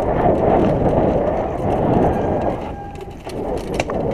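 Mountain bike descending a dirt singletrack: tyres running over rough dirt and the bike rattling over bumps in a dense, continuous noise. The noise drops briefly about three seconds in, then picks up again.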